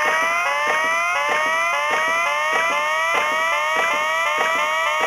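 Sankyo Fever Big Chime pachinko machine playing its electronic sound effect: a rapid run of short rising beeps, about three a second, over a clatter of clicks.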